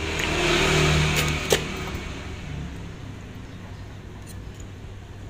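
A motor vehicle engine passing by, swelling and then fading over the first two seconds. A single sharp click about a second and a half in.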